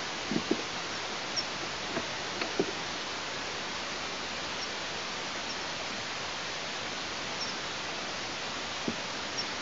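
Steady hiss on an outdoor nest-camera microphone, with a few short soft knocks in the first three seconds and one more near the end as an eastern imperial eagle shifts and flaps its wings on a branch beside the nest.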